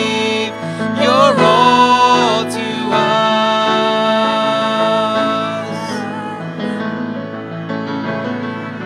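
Worship band music: grand piano and violin with a man and woman singing long held notes without clear words. The voices fall away about six seconds in, leaving softer piano and violin.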